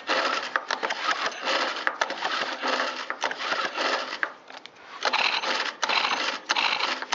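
Recoil starter of a Stihl KM130R 4-Mix engine pulled repeatedly in quick succession, each pull turning the engine over with a rattling whir, with a brief pause about two-thirds through. The engine was freshly oiled with Tri-Flow to free it after sitting a long time, and is being pulled through to loosen it up.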